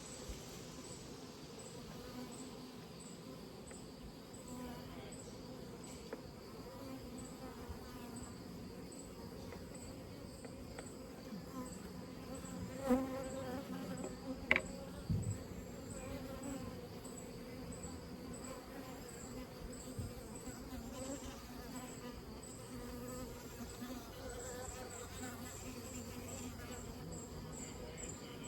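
Honeybees buzzing around the hive in a steady hum, with a faint, evenly repeating high chirp running over it. There are a few short knocks about halfway through.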